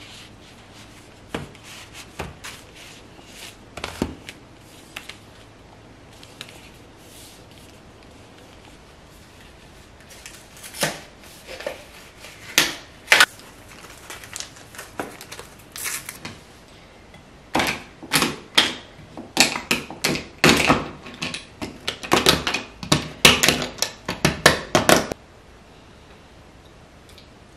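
Kitchen utensils clicking and knocking during food preparation: irregular sharp taps, a few at first, then a dense run through the middle and later part that stops a few seconds before the end.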